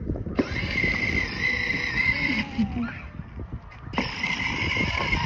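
Small electric motor of a child's ride-on toy whining steadily as it drives. It runs for about two seconds, stops, and starts again about four seconds in, over a low rumble of the wheels rolling on the ground.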